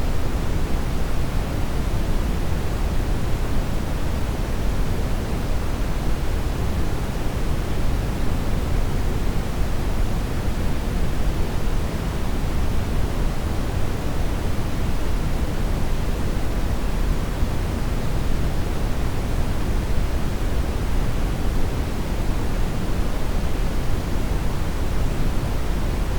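Steady, unchanging synthetic noise: a smooth, even rushing hiss that is fullest in the lows and thins out toward the highs, like pink noise rather than the bright, hissy purple noise it is sold as. No other sound breaks it.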